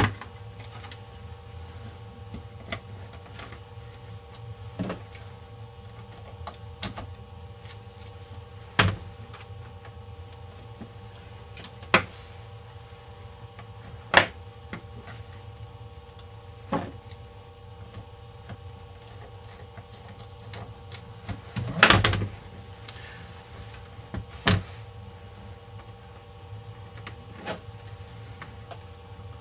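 Scattered clicks and knocks from handling the parts of a ThinkPad 600-series laptop during reassembly, with a short run of rattling knocks about two-thirds of the way through. A steady low hum runs underneath.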